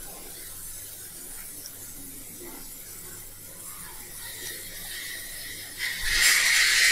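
Low steady hiss. From about six seconds in, a steel spoon scrapes thick rice-and-dal batter out of a steel mixer jar into a glass bowl, in repeated short scrapes.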